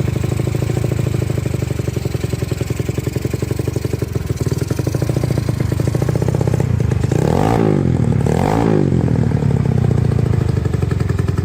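Single-cylinder engine of a Honda Vario 125 scooter, bored up to 160cc and running on a carburettor, idling while it warms up. The throttle is blipped twice in quick succession about seven and eight and a half seconds in, the pitch rising and falling each time.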